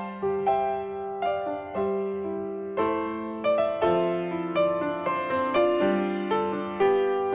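Solo piano background music: single notes struck about twice a second over held bass notes.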